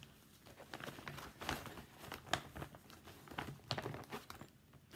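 Irregular crinkling and rustling with light taps and clicks, from cross-stitch works in progress and their project bags being handled.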